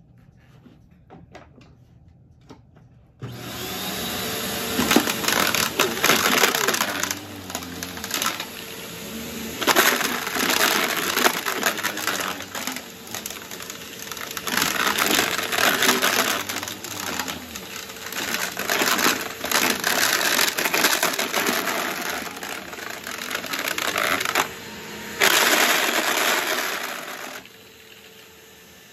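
Bissell PowerGroom bagless upright vacuum cleaner switched on about three seconds in, then running with a steady high whine as it is pushed back and forth over carpet, its sound rising and falling with each stroke. Scattered hard candy pieces rattle and click as they are sucked up. It drops to a quieter run near the end.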